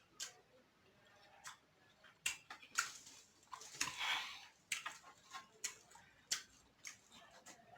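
Close-up eating of a seafood boil: irregular sharp clicks and small cracks from crab shell and mouth, with chewing between them.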